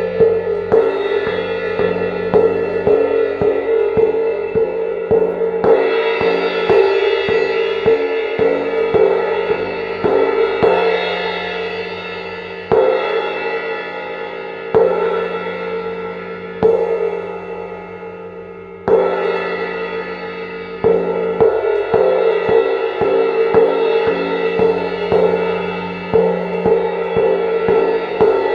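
Paiste 502 18-inch cymbal played with mallets: fast rolls build a sustained, shimmering ring. Partway through, the rolls give way to a few single strokes, each left to ring and fade, before a fresh roll swells it back up.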